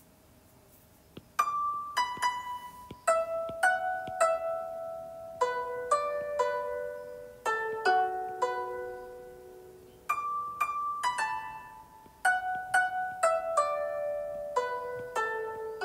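Background music of plucked-string notes, harp-like, each note struck sharply and left to ring out in slow melodic phrases, starting about a second and a half in after near silence.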